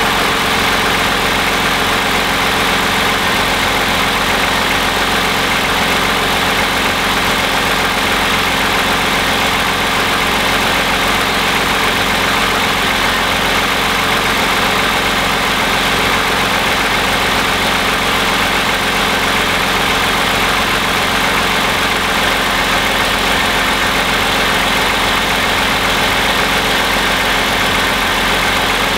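2010 Toyota Camry's 3.5-litre V6 (2GR-FE) idling steadily with the hood open, a few minutes after a cold start. The engine has about 87,800 miles on it, and the owner takes its sound as normal.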